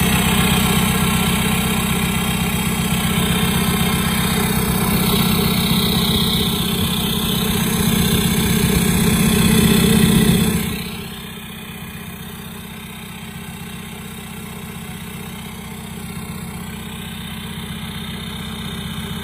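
VW 1.9 TDI (ALH) four-cylinder turbodiesel idling steadily, heard at the exhaust tailpipe. It is loud for about the first ten seconds, then drops to a quieter, even idle.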